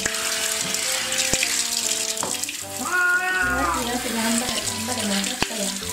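Hand shower spraying water over a wet cat, with the cat giving one drawn-out meow about three seconds in, a protest at being showered.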